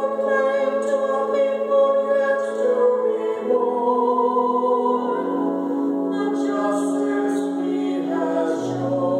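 A man and a woman singing a psalm as a duet over pipe-organ accompaniment. The organ holds sustained chords that change a few times, and a deep bass note comes in near the end.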